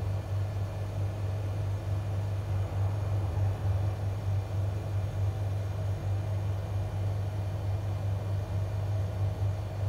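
A steady low hum with a faint hiss above it, unchanging throughout.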